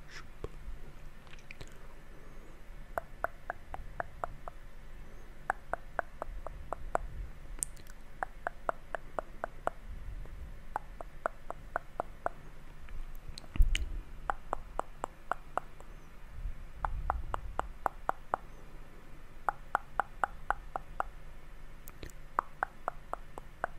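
Close-miked ASMR mouth sounds: quick runs of soft tongue and lip clicks, several in a row, repeating every second or two. A single louder thump falls about halfway through.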